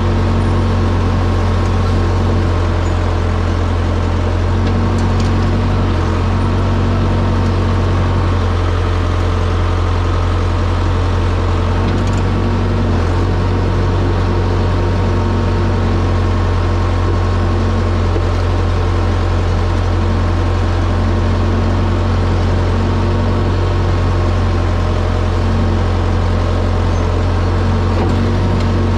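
Bulldozer's diesel engine running steadily with a low, even drone.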